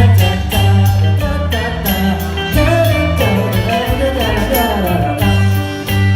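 Live pop band playing an instrumental passage: electric guitar lead over bass and drums with a steady beat, the guitar line sliding between notes about halfway through.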